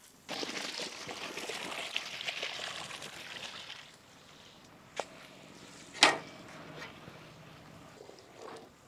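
Salt and whole spices tipped into a large aluminium pot of boiling water, which hisses and bubbles up for about three and a half seconds, then settles to a quieter bubbling. A small click about five seconds in and a loud, sharp knock a second later.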